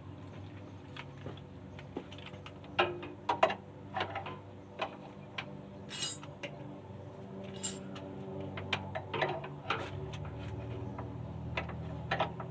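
Irregular clicks and knocks from hand work on a car's front-end parts, the loudest pair about three seconds in, over a steady low hum.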